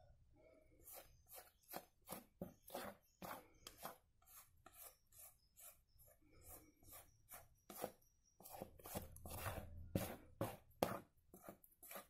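Silicone spatula scraping batter out of a stainless steel mixing bowl in quick short strokes, about two or three a second.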